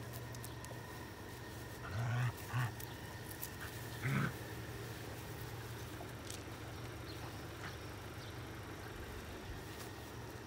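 Puppies at play tugging a toy, giving three short vocal sounds about two and four seconds in, over a faint steady hum.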